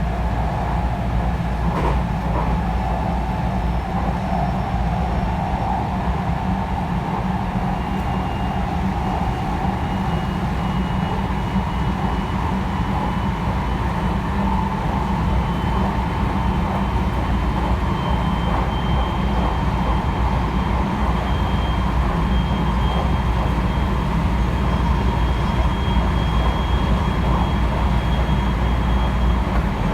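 Cabin running noise of a JR West 223 series electric train at speed: a steady low rumble of wheels on rail, with a thin motor whine rising slowly in pitch as the train gathers speed. A single faint click about two seconds in.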